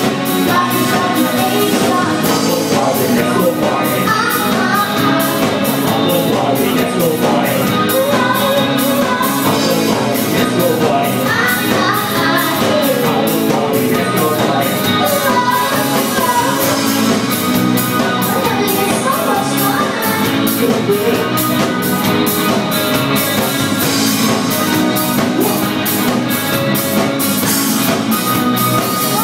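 Live band playing a pop-rock song, with a woman singing lead into a microphone over a drum kit keeping a steady beat. Loud.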